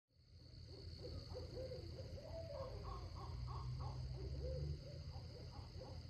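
An animal making a string of short calls that waver up and down in pitch, against a steady high tone and a low rumble.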